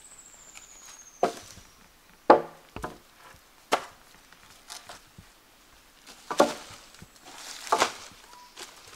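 Wood being chopped: about seven sharp strikes at uneven intervals, the loudest a little over two seconds in.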